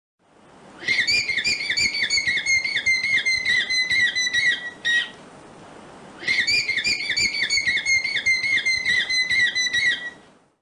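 Vicuña calling: a high, whistling trill of quick repeated notes, given twice, each run about four seconds long with a short pause between.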